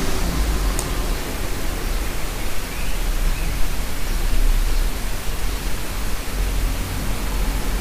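Steady, even noise with a low rumble underneath and no distinct events.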